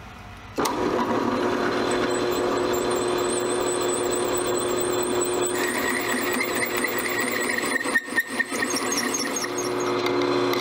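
Drill press driving a bimetal hole saw into quarter-inch metal plate. A steady motor hum gives way about half a second in to the loud grinding of the teeth cutting, with a high squeal that chirps several times a second. A lower squeal joins about halfway through, and near the end the cut stutters.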